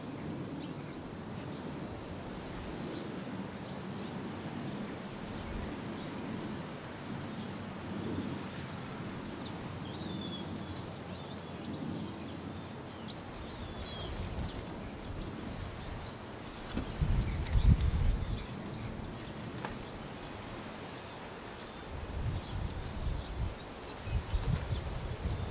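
Outdoor background with small birds chirping now and then. Irregular low rumbles come in about two-thirds of the way through and again near the end, and these are the loudest sounds.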